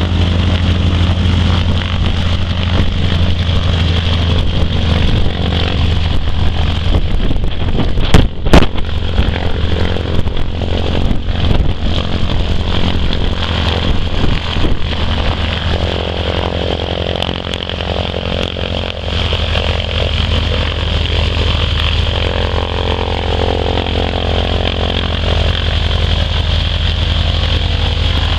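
Nine-cylinder Pratt & Whitney radial engine of a 1977 Air Tractor spray plane running steadily at idle on the ground. Two sharp knocks stand out about eight seconds in.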